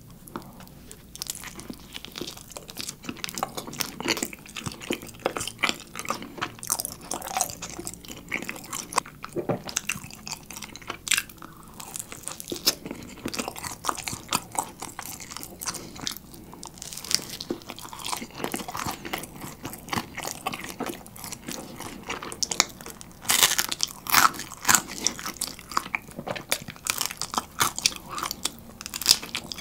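Chewing a slice of gorgonzola pizza topped with honeycomb. A bite at the start, then steady, irregular crunching and chewing, with a run of louder crunches about three quarters of the way through.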